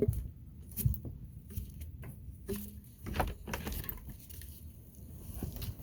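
Shuffling, rustling and scattered light knocks of someone putting shoes on and moving about, with a low rumble underneath.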